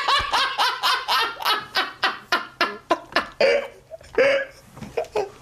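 A man laughing hard in rapid high-pitched bursts, about four a second, that slow and fade toward the end.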